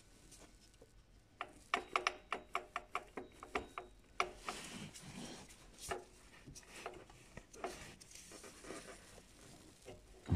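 Ratchet wrench with a 14 mm socket clicking in a quick even run, about five clicks a second, as a bolt on the power steering pump is worked loose. It is followed by scattered clicks and the rub of the tool and hand against metal.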